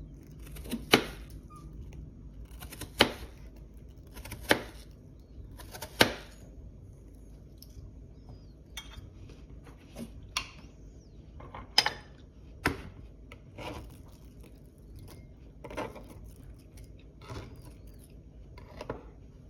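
A small dog sneezing again and again to beg for a treat: about a dozen short, sharp sneezes. The four loudest come in the first six seconds, about a second and a half apart, and softer ones follow at irregular gaps.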